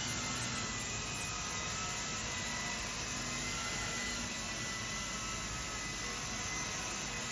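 Small electric RC scale helicopter (a size-300 RAH-66 Comanche build) in low flight: the steady whir of its five-blade main rotor and the high whine of its electric motors.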